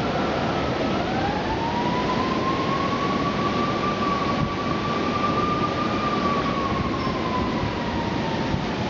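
A siren wailing, its pitch rising slowly over several seconds and then sinking again, over a steady rush of storm wind.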